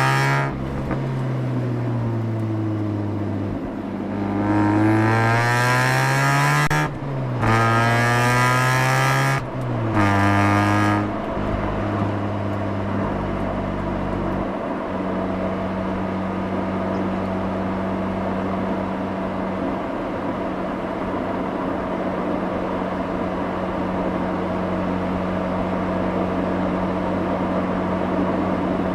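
Mazda RX-8's two-rotor rotary engine heard from behind at the exhaust. The revs fall, then climb twice with a quick break at each upshift, and from about twelve seconds in they settle into a steady drone at constant speed over road noise.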